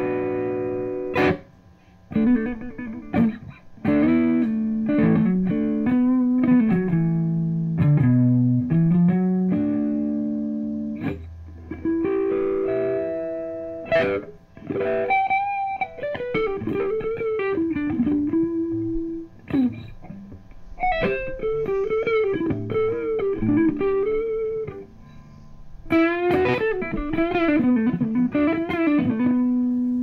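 Electric guitar played through a Boss Katana Artist MK2 combo amp. Chords ring out in the first half, with short breaks between them. Single-note melodic phrases with bends and vibrato follow in the second half.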